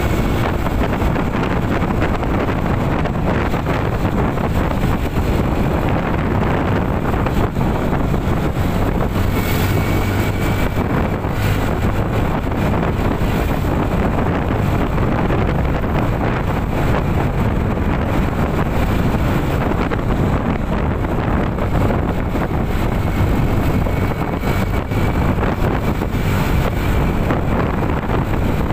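Steady wind rushing over the microphone, with road and engine noise from a moving vehicle.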